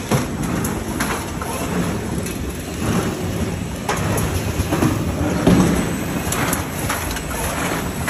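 Automatic cartoning machine running: a dense mechanical clatter and rumble with many irregular small clicks and knocks from its moving parts.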